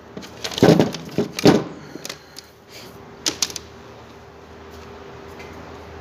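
Handling noise as a length of insulated wire is moved and set down: a few rustling knocks in the first second and a half, then a couple of light clicks. A faint steady hum follows.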